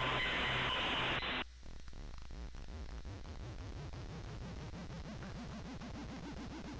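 Computer malware's synthesized audio playing: harsh static-like noise that cuts off suddenly about a second and a half in, then a quieter, fast-pulsing low buzz that slowly climbs in pitch.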